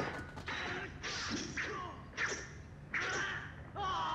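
Kung fu film fight sound effects: a run of sharp swishing strikes and hits, about one a second, with short shouts among them.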